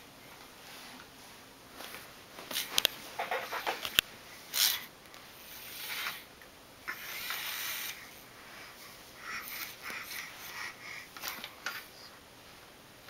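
A baby's breathy grunts and sniffs while crawling on carpet, with rustling and a few sharp clicks.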